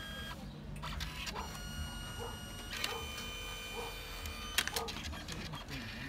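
Canon Selphy compact dye-sublimation photo printer at work, its feed motor whining at a steady pitch that shifts a few times as it draws the paper through for the colour passes. A sharp click about four and a half seconds in.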